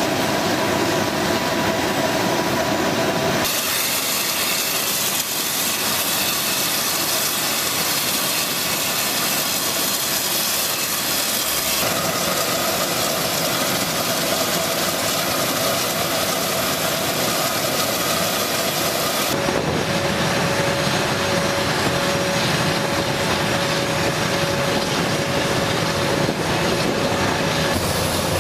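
Steady jet turbine noise on a flightline: a loud, even rushing hiss with a faint steady whine. Its character changes abruptly three times.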